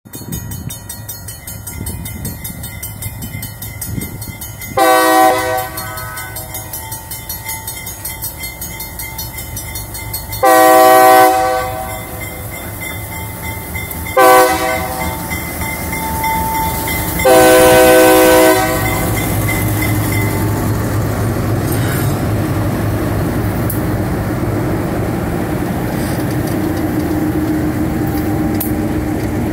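GE B23-7 diesel locomotives' multi-chime air horn sounding four blasts, long, long, short, long: the grade-crossing signal. After the last blast, the locomotives' diesel engines and the wheels of the passing locomotives and covered hopper cars run past steadily and louder.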